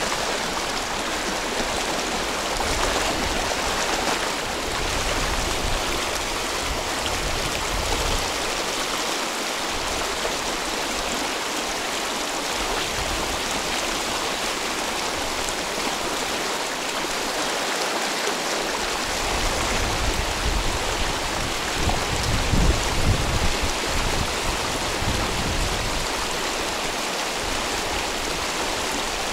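Mountain river rushing steadily, a constant broad hiss of moving water. A low rumble rises under it about two-thirds of the way through.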